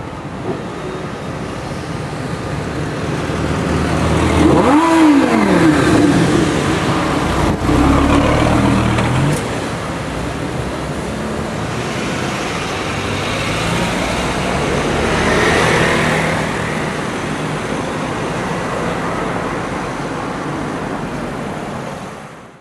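Lamborghini Gallardo's V10 engine accelerating hard, its note rising and then falling about five seconds in, with a second rising rev a few seconds later; steady street traffic noise follows, swelling once more near the end.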